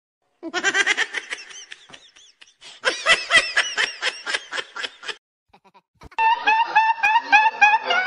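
Laughter in quick rhythmic bursts, in two stretches with a short pause between them. About six seconds in, a different laugh starts, a person giggling and snickering continuously.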